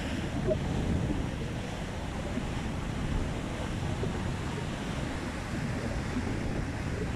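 Sea surf breaking and washing across a flat concrete slipway, a steady rushing of water, with wind rumbling on the microphone.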